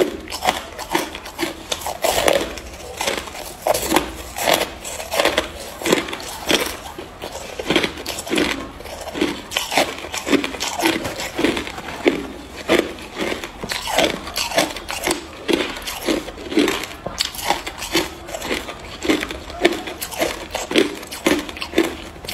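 Hard ice chunks being bitten and chewed: a steady run of crisp crunches, about two a second.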